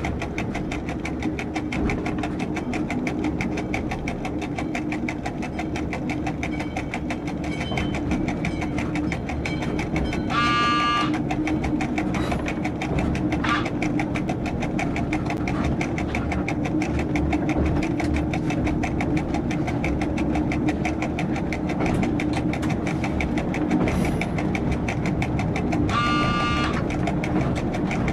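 Diesel railcar's engine running steadily, heard from the driver's cab. A short high pitched signal sounds twice, about a second each, around the middle and near the end.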